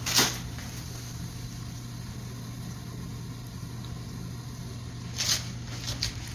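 A few footsteps or scuffs, the loudest just after the start and two more near the end, over a steady low hum.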